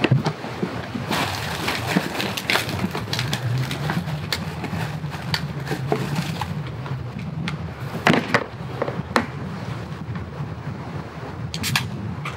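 Objects being handled at a cooler and camp table: scattered clicks and knocks, with sharp ones about eight seconds in and near the end. Under them runs a steady low rumble of wind on the microphone.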